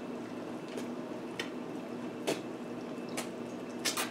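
Close-miked chewing of corn dipped in creamy spinach dip: wet mouth smacks and clicks roughly once a second, two coming close together near the end, over a steady low hum.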